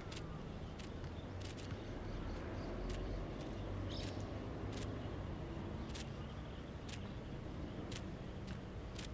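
Outdoor ambience: a steady low rumble with sharp, irregular ticks about once a second.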